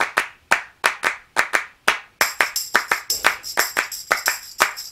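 Intro music: a steady rhythmic handclap beat, joined a little before halfway by a jingling tambourine.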